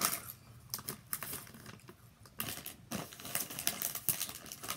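A plastic chip bag crinkling as it is handled, in several short irregular bursts.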